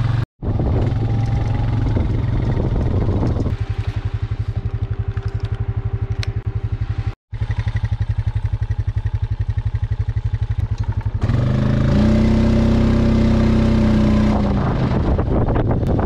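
A small vehicle engine running with a fast, even pulse, broken off twice by short cuts. From about eleven seconds in, a louder, higher steady note holds for about three seconds.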